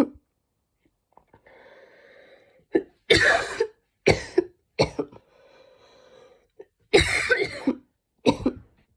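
A woman's barking coughs in two bouts of several sharp coughs, each bout after an audible drawn-in breath, as she tries to cough up mucus.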